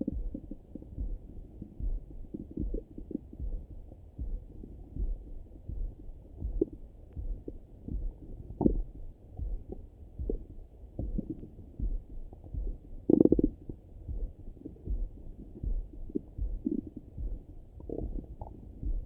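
Stomach and bowel gurgles and rumbles heard through a Littmann stethoscope pressed to the belly, muffled and without any treble. Scattered gurgles come and go, the loudest about 13 seconds in, over a steady run of soft low thumps.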